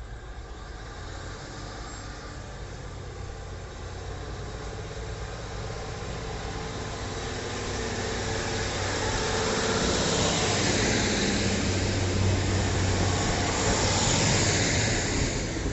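A diesel train's engine running with a steady low hum, growing louder over the first ten seconds as the train moves through the station, with a loud hiss of wheels and air joining from about ten seconds in.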